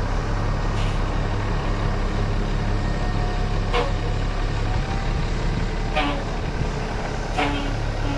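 A heavy engine of farm machinery runs steadily with a low hum. Four short, sharp sounds come over it: about a second in, near four seconds, near six seconds and near seven and a half seconds.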